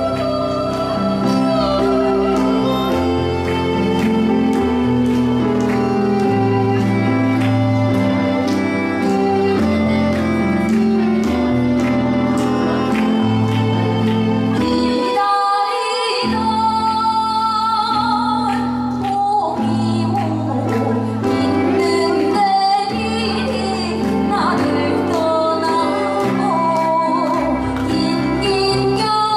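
A woman singing a ballad through a handheld microphone over a recorded backing track with steady bass notes. About halfway through, the bass drops out briefly.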